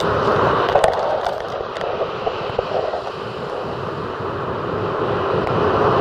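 Surf of a rough sea breaking and washing up a sandy beach: a steady rushing noise with a few crackles in the first two seconds. It eases a little about three seconds in and builds again near the end as the next wave comes in.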